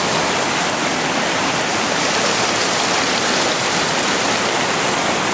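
Steady rush of a mountain stream flowing close by.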